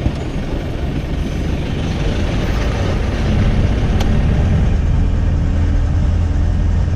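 Engine and road noise of a moving car heard from inside the cab, a steady low drone that grows louder about three seconds in, with one short click about four seconds in.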